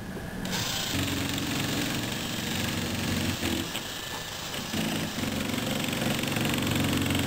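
RepRap 3D printer's stepper motors whirring as the machine runs, a steady low hum that drops away about three and a half seconds in and comes back about a second later.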